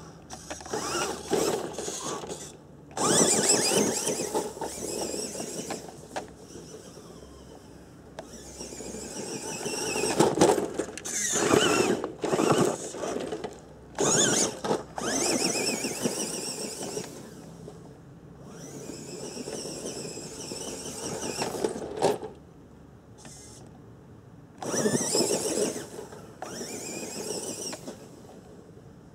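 Tamiya Lunchbox RC truck's electric motor and gearbox whining in repeated bursts of throttle as it drives over loose dirt, each burst rising and falling with short quieter gaps between.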